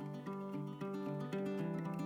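Background music: acoustic guitar playing a plucked melody with chords.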